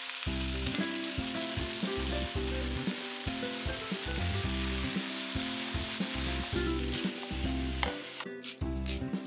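Beef and vegetables sizzling as they stir-fry in a hot wok. The sizzle thins about eight seconds in, and a few sharp clicks follow as tongs toss the food.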